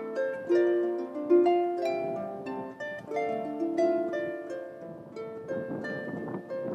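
Solo harp playing a melody over chords, each plucked note left to ring into the next, with a quick flurry of notes near the end.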